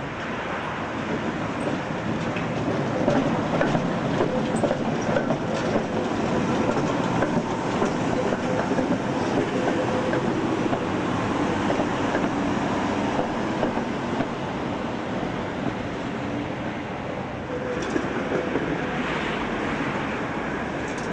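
Tatra T3 tram passing close by: steel wheels rumbling and clattering on the rails with a faint steady motor whine. It swells over the first few seconds and eases off toward the end.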